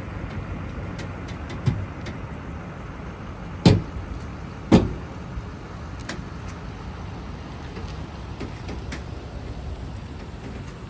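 Pickup truck running as it tows a travel trailer out of a campsite, a steady low rumble, with two loud clunks a little over a second apart, near four and five seconds in, and a lighter knock before them.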